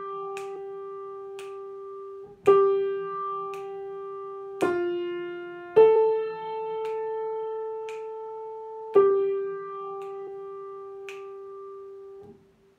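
Piano playing a slow melodic dictation in three-four time: a held G, then a few single notes, ending on a long-held G. Finger snaps beat the pulse softly about once a second.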